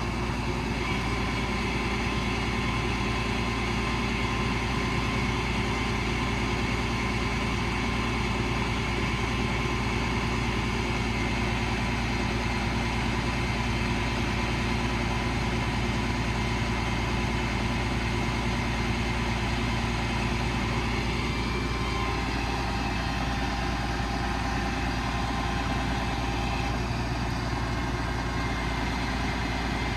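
Cummins 5.9 diesel engine running steadily at idle, with a faint whine that drops slightly in pitch about two-thirds of the way through.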